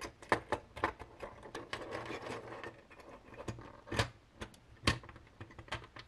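Hard 3D-printed plastic parts clicking and rattling as they are handled and fitted together: a string of sharp, irregular clicks, with louder ones about four and five seconds in.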